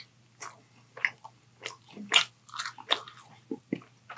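Close-miked mouth chewing a bite of sandwich: irregular smacks and clicks of lips and jaw with short quiet gaps between them, the loudest about two seconds in.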